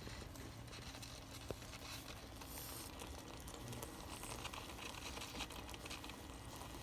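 Faint kitchen handling sounds: quiet rustling and crinkling with a single small click about a second and a half in.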